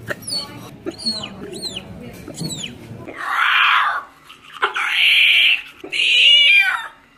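A woman's squeaky hiccups: four short, high squeaks that each fall in pitch, then three louder, longer and breathier squeals, the last sliding down in pitch.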